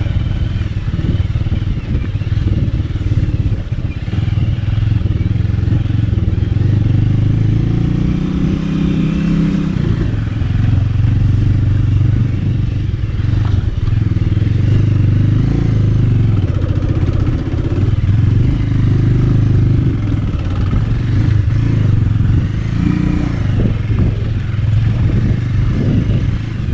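Bajaj Avenger 220's single-cylinder engine running under load on a rough off-road climb, its pitch rising for a couple of seconds about eight seconds in before settling again. A few knocks near the end.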